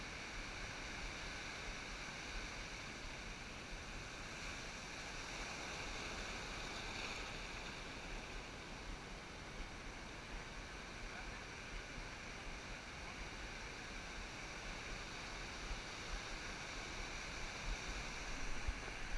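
Faint, steady wash of ocean surf breaking along the beach.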